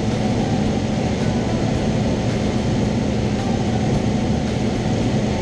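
Cessna 172's piston engine and propeller running steadily in cruise flight, heard from inside the cabin.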